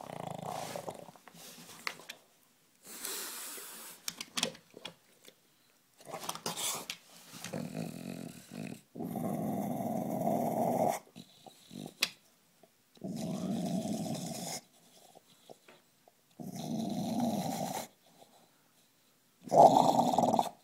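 English bulldog growling in a series of rough bouts of one to two seconds each with short pauses between, a gurgling sound like someone hitting a bong.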